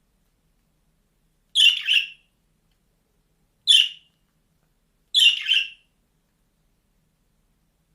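A bird calling three times, short chirping calls with silence between; the first and last are quick double notes.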